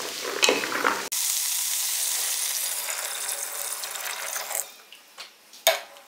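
Wooden spatula stirring sizzling peas, leeks and spinach in a hot metal pot, with scrapes and clicks. About a second in, beef broth is poured into the pot in a stream, making a steady hissing splash that fades out after about five seconds. Near the end the spatula knocks twice against the pot.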